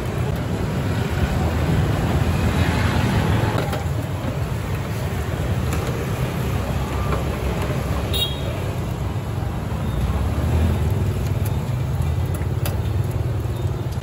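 Steady street traffic noise with motorbikes passing, a continuous low rumble that swells a little now and then. A few light clicks sound over it.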